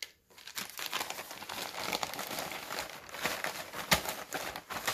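Clear plastic poly bag crinkling and rustling steadily as it is handled, with a few louder crackles about four seconds in.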